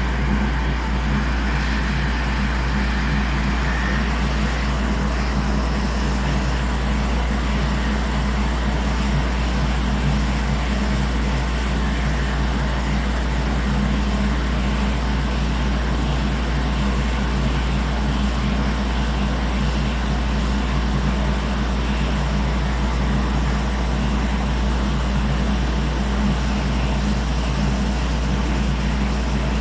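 Hot-air rework station blowing steadily, a constant whoosh over a low hum, while heating the PS5's back USB port to desolder it.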